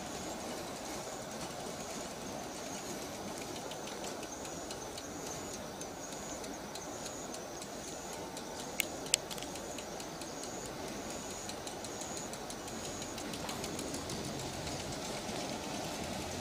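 Outdoor street ambience: a steady rumble, with an insect in the roadside grass chirping in short high pulses about once a second. Two sharp clicks come about nine seconds in.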